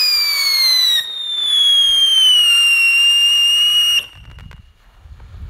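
A 50 mm firework fountain whistling as it sprays sparks. It is a loud, shrill whistle that slides down in pitch, stutters about a second in, then levels off and cuts out suddenly near four seconds in. A few faint crackles follow.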